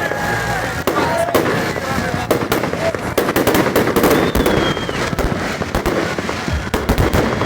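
Fireworks going off: a rapid, irregular run of bangs and crackles.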